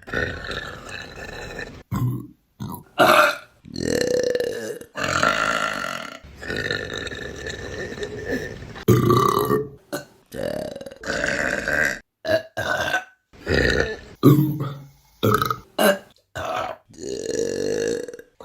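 A rapid string of women's burps, about fifteen, each cut off sharply before the next: some short, several long and drawn out with a steady pitch.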